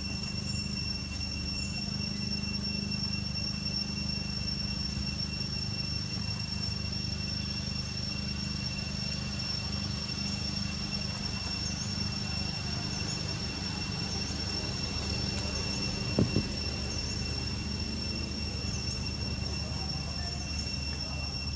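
Outdoor ambience: a steady low rumble under a constant high-pitched whine, with faint short chirps in the second half and one sharp knock about sixteen seconds in.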